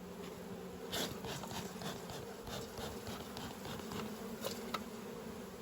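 Honey bees buzzing in a steady hum, with a few light clicks scattered through it.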